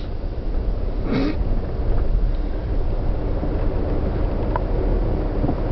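Steady low rumble of a car driving, heard from inside the cabin, with a short hiss-like noise about a second in.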